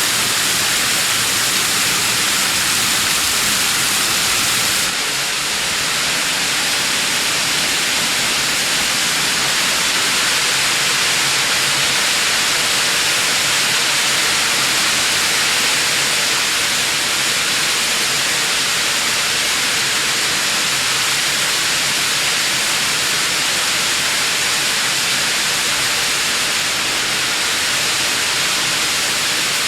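Waterfall spray: a steady, loud hiss of falling and splashing water, sitting mostly in the high range, with a slight shift in tone about five seconds in.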